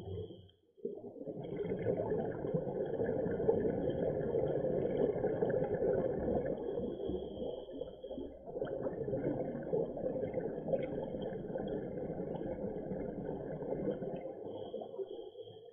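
Muffled underwater rumble and bubbling of scuba divers' exhaled breath, heard through an action camera's waterproof housing. It cuts out briefly just after the start and dips again about halfway through.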